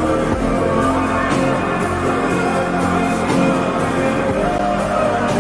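Slowed-down background song with sustained tones and a faint beat.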